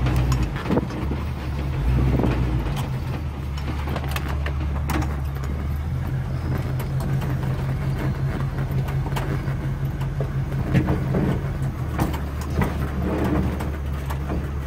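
1977 Chevy K10 pickup's engine running low and steady, heard from inside the cab while it creeps through tall grass and brush off-road. Scattered knocks from the truck jolting over the rough ground.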